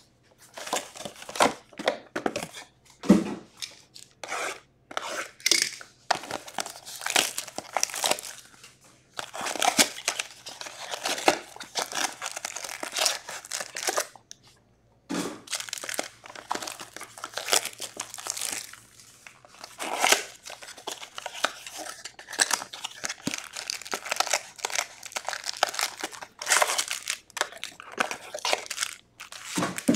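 Cardboard trading-card boxes being torn open and wrapped card packs crinkling as they are handled and stacked: irregular tearing and rustling, with a short pause about halfway through.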